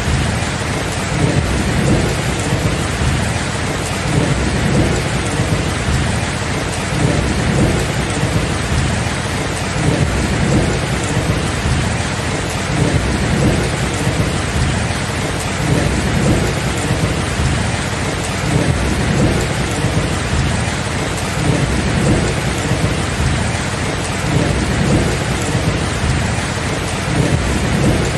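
Steady heavy rain with a continuous low thunder rumble that swells and fades every couple of seconds.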